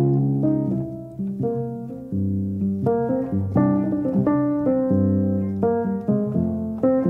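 Background piano music: notes struck one after another and left to fade, over low chords.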